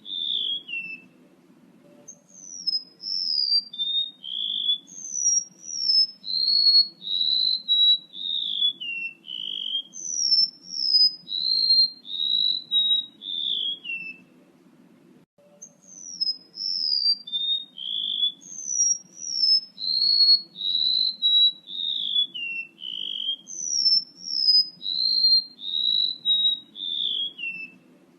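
Song of a male rementuk laut bird, played as a lure call: a rapid series of clear whistled notes, each sliding down in pitch and the run stepping lower overall, repeated in two long phrases with a short pause about halfway. A faint steady low hum sits beneath.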